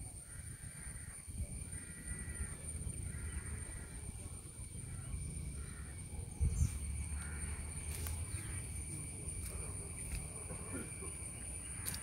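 Outdoor ambience: a steady high-pitched insect drone, with a bird calling in short repeated notes about once a second for the first half. Under it is a low rumble of wind and handling, and a few sharp clicks and rustles near the end as the camera pushes into bushes.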